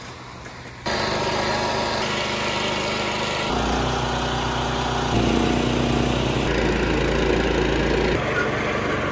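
A string of short clips of small engines running, from cricket pitch mowers and rollers at work. The sound changes abruptly every second or two, and the first second is quieter.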